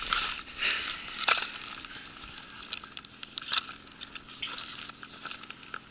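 Boots crunching and scuffing on ice strewn with chipped ice: a run of short, uneven crunches and clicks.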